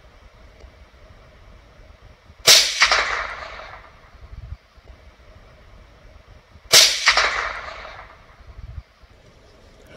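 Two shots from a CZ 457 Lux .22 LR bolt-action rifle firing high-velocity 40-grain rounds, about four seconds apart. Each sharp crack is followed by an echo that dies away over about a second and a half.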